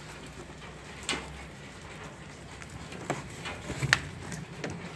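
A few light clicks and knocks as gloved hands handle a new radiator's plastic end tank in its cardboard box, the sharpest click a little before the end.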